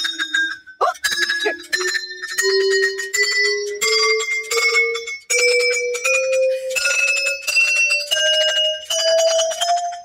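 Tuned chime poles of a playground song fence, each giving a bell-like note as it is played in turn. The notes come at about two a second and climb steadily in pitch from low to high.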